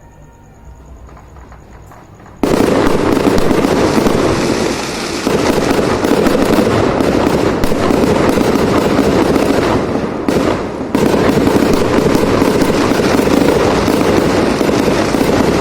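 Fireworks going off in a dense, continuous barrage of rapid crackles and bangs. The barrage starts suddenly about two seconds in and eases briefly about two-thirds of the way through.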